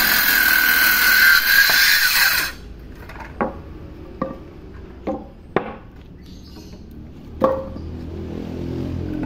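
Handheld electric circular saw cutting through a wooden plank with a steady high whine, cutting off abruptly about two and a half seconds in. Then about five sharp wooden knocks as the cut pieces and the saw are set down on the floor.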